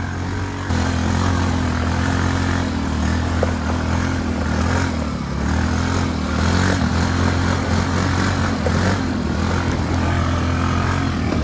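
ATV engine running under way, its pitch rising and falling with the throttle, and a step louder just under a second in. A steady rushing noise sits over it.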